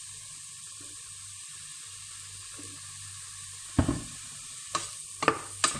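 Shredded chicken with garlic and onion sizzling steadily in a stainless steel pot, soy sauce just added. About four seconds in there is a loud knock, then a few lighter knocks of a wooden spoon against the pot.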